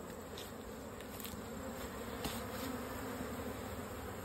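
Many honeybees buzzing around their hives in a steady drone of heavy flight traffic. The beekeeper reads it as a strong foraging flow, with bees bringing in nectar and pollen, not swarming.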